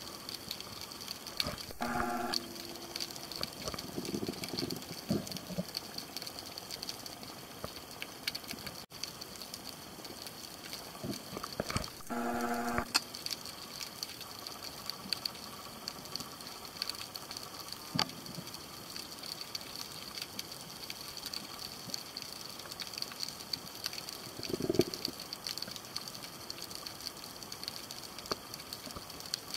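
Underwater ambience picked up by a camera: a steady hiss with many small clicks and crackles, and two short buzzy tones, one near the start and one about twelve seconds in.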